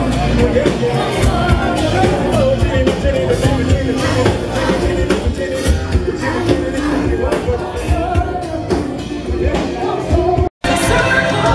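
Loud music with no speech over it. It cuts out for a moment about ten and a half seconds in, and a different piece of music starts.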